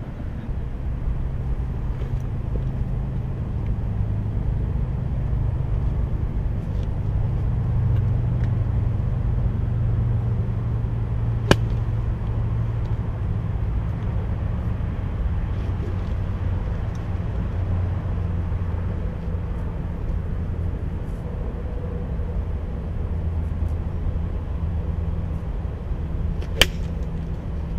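Steady low rumble of distant traffic. A sharp click of a golf iron striking a teed ball comes near the end, and a similar single click about halfway through.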